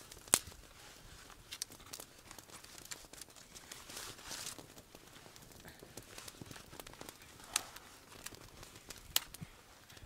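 Small fire of thin dry twigs and paper just catching, crackling faintly, with a few sharp snaps.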